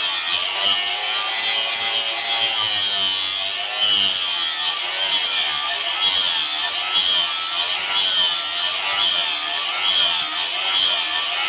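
Handheld angle grinder with an abrasive disc grinding the edge of a steel cleaver blade: a continuous loud grinding hiss, with the motor's whine wavering in pitch as the disc works along the edge.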